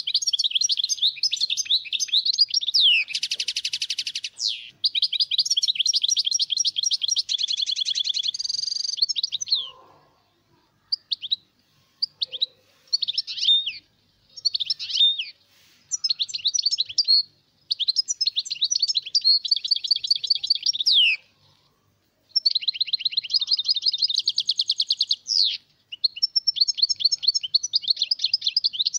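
European goldfinch singing: long phrases of fast, twittering trills and buzzy notes, high-pitched, separated by short pauses.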